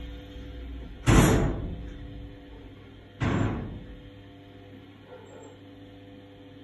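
Two sudden loud bursts of noise about two seconds apart, each starting sharply and fading over most of a second.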